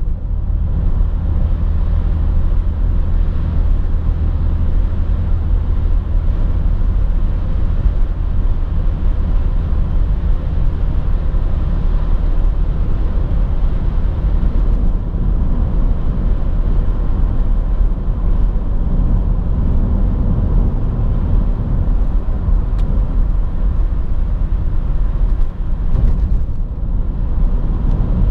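Steady in-cabin drone of a BMW 330xd's 3.0-litre six-cylinder turbodiesel cruising, mixed with tyre and road noise. The low rumble holds an even level.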